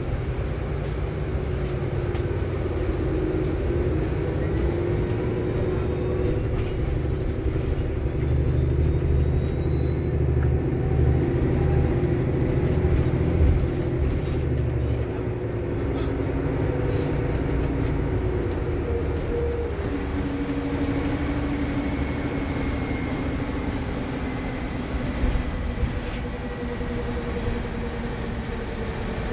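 Cabin sound of a 2022 Nova Bus LFS HEV hybrid-electric city bus under way: a steady low rumble of drivetrain and road. Drivetrain tones climb in steps as the bus picks up speed over the first half, then settle lower, with a faint high whine rising and falling in the middle.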